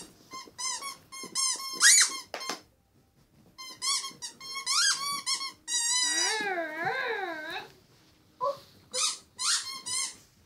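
Squeaky dog toys squeezed over and over, giving runs of short, high squeaks with a brief pause about three seconds in. A longer, wavering squeal sounds a little past the middle.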